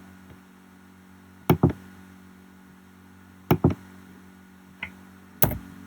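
Sharp clicks from operating a computer: three quick pairs of clicks about two seconds apart, with a fainter single click between the last two, over a steady low hum.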